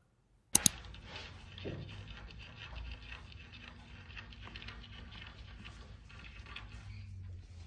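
Two sharp clicks about half a second in, then continuous rustling and light scratching as a fleece blanket is handled over a cat moving beneath it.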